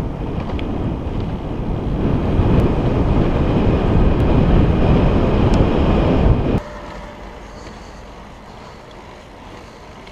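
Wind buffeting the camera's microphone while cycling along a road, a loud steady rumble. About six and a half seconds in it cuts off suddenly, leaving a much quieter, steady rush of wind.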